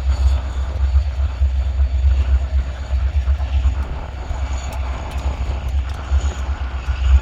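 EMD SD40-2 diesel-electric locomotives working under load, their V16 two-stroke engines giving a steady, deep rumble, with wind buffeting the microphone.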